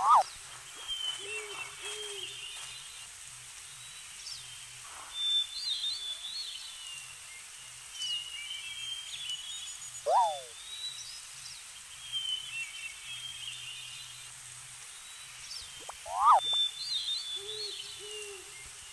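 Bird-filled outdoor ambience: birds chirping and twittering, with three loud short whistled calls that rise and fall in pitch, two soft low double hoots, and a faint low pulsing underneath.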